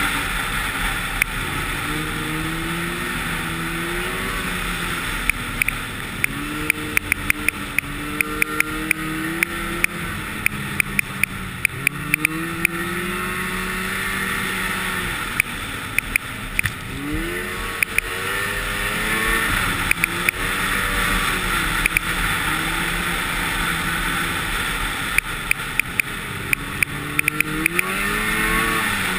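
Snowmobile engine running while riding, its pitch rising and falling again and again as the throttle is worked, under a steady rush of wind noise. Clusters of sharp clicks come through in several runs.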